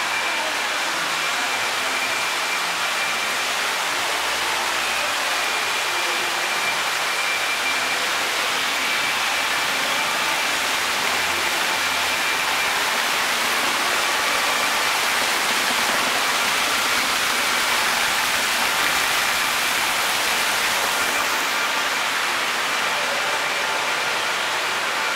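Water falling steadily from a tiered indoor fountain and splashing into its pool, an even rushing that does not change.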